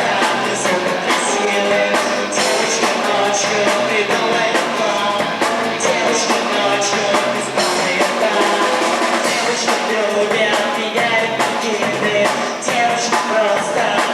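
A rock band performing a song live, with a singer over guitar and a drum kit keeping a steady beat.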